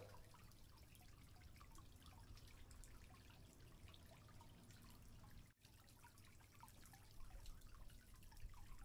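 Near silence with faint, irregular drips and small pops of water from the shrimp aquarium, a few slightly louder near the end.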